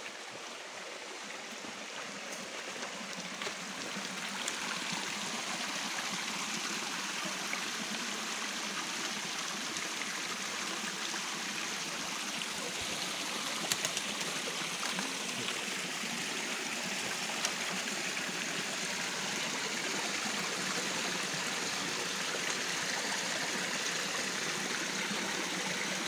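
Shallow rocky forest stream running and trickling steadily, growing a little louder over the first few seconds, with a couple of brief faint knocks around the middle.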